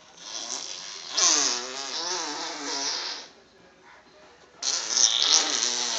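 Two long, imitated fart noises made by a person, each lasting two to three seconds and wavering in pitch, with a short pause between them.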